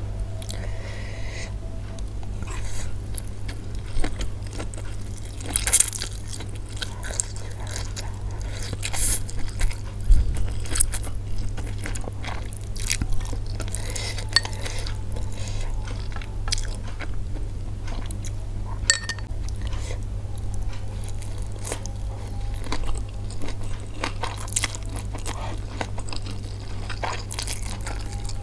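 A person eating Indomie goreng fried instant noodles close to the microphone: chewing and wet mouth sounds, with many short crunches and clicks. A steady low hum runs underneath.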